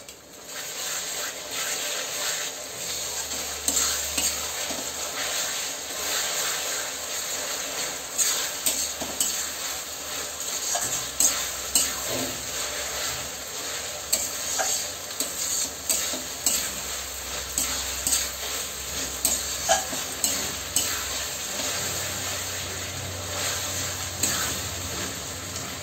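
Onion, tomato and ginger-garlic paste sizzling in mustard oil in a kadai over a high gas flame, stirred continuously with a wooden spatula that scrapes and knocks against the pan in many short clicks over the steady frying hiss.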